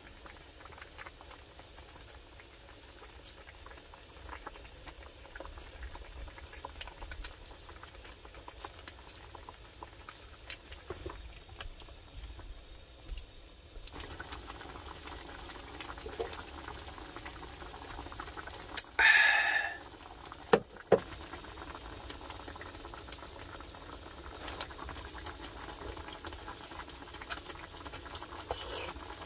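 Sundae stir-fry with sauce bubbling in a cast-iron skillet on a portable butane stove, with scattered small clicks and taps. About two-thirds of the way through comes a louder rushing sound about a second long, followed by two sharp knocks.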